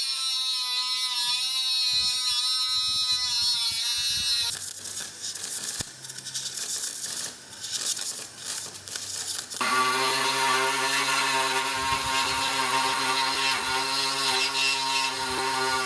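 Electric power tool running with a steady, slightly wavering whine, then several seconds of quieter irregular noise with clicks, then the tool running steadily again.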